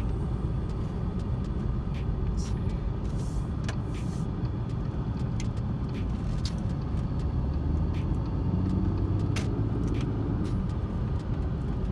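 Audi A6 sedan driving at road speed, heard inside the cabin: a steady low rumble of engine and tyre noise, with a faint hum that swells briefly near the end and a few light clicks.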